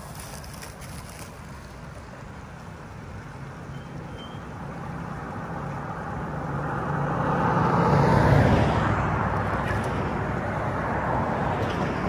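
Road traffic: a vehicle passes close by, growing louder to a peak about eight seconds in and then fading, over a steady background of traffic noise.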